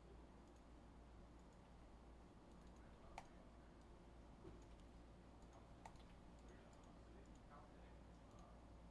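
Near silence over a low steady hum, broken by a few faint clicks, the clearest about three seconds and six seconds in, from someone working a computer.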